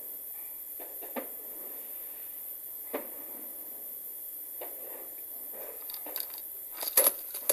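Distant fireworks heard from indoors: a few faint, muffled pops over a steady hiss, with a quick run of sharper clicks near the end.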